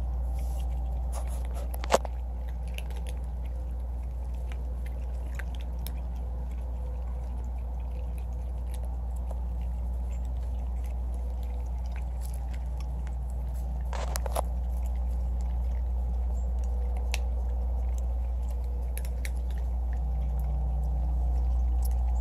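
Several cats eating dry kibble, a scatter of small crunching clicks over a steady low hum. A single sharp click about two seconds in, and a short run of louder clicks about two-thirds of the way through.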